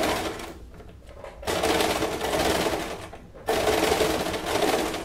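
Domestic electric sewing machine stitching bias binding onto a bra cup. It runs in three spurts of a second or two each, easing off briefly between them.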